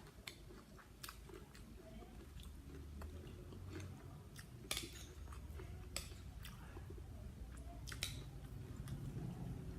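A person chewing and biting close to the microphone while eating spicy blue swimmer crab salad, with a series of sharp crunches and clicks, several of them louder about halfway through and near the end.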